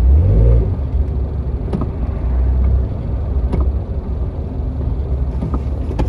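Steady low rumble of engine and road noise heard from inside a moving vehicle's cabin, with a few light clicks.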